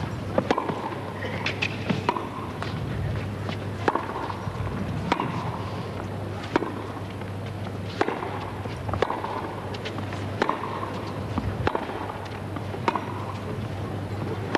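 Tennis rally: racquets strike the ball in turn, a sharp pock roughly every 1.3 seconds, a dozen or so shots, over a steady low hum.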